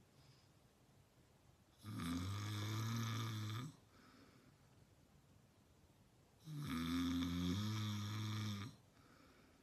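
A man snoring: two loud snores of about two seconds each, around four seconds apart, with a low buzzing tone under a noisy rasp, and quiet in between.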